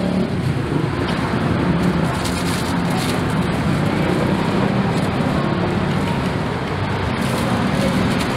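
Steady street ambience dominated by the continuous rumble of passing road traffic.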